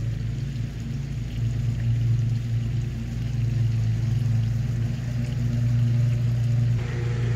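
An engine running steadily, a low even hum that holds its pitch.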